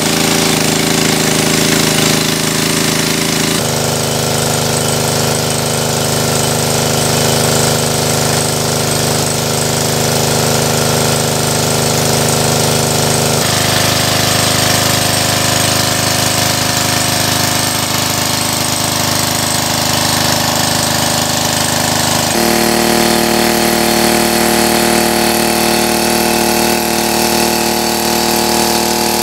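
A small engine-driven portable water pump running steadily under load, pumping water out of a stream pool, with the discharge jet splashing. Its tone jumps abruptly three times.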